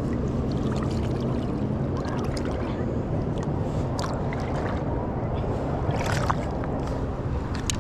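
Steady rush of shallow river water with a low hum under it, and a few short knocks and splashes as a landing net is worked in the water over rocks.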